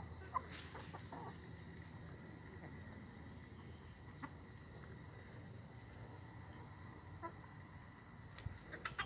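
Chickens clucking faintly a few times, with a short sharp sound about half a second in and a flurry of short sounds near the end.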